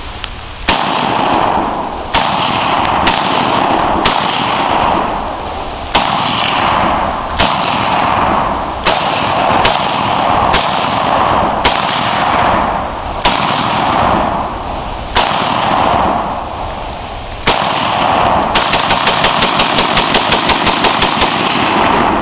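Ruger Mini-14 semi-automatic rifle fired as a string of single shots one to two seconds apart, each followed by a long rolling echo. Near the end comes a fast, even run of shots, about eight a second for three or four seconds: the rifle being bump-fired from the hip.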